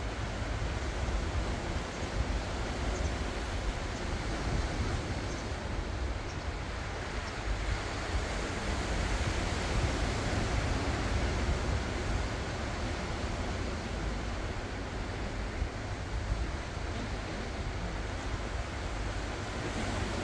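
Ocean surf: waves breaking and washing onto the shore in a continuous wash that swells and eases, under a steady low rumble.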